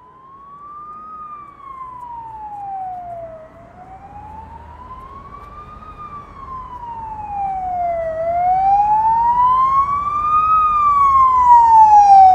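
Emergency vehicle siren in a slow wail, its pitch rising and falling about every five seconds and growing steadily louder.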